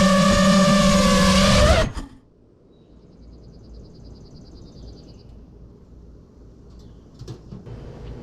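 Five-inch FPV quadcopter's brushless motors whining at a steady pitch, cutting off abruptly about two seconds in. A quiet stretch follows, with a faint, rapid, high ticking and a few light clicks.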